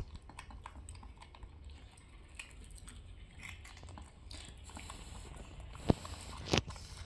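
Crunching and chewing of crispy fried green rice (cốm) pieces being eaten, with faint scattered small crackles. Two sharper taps stand out about six seconds in.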